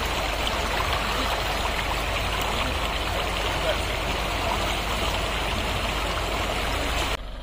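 Steady rush of a flowing river or stream, cutting off abruptly near the end.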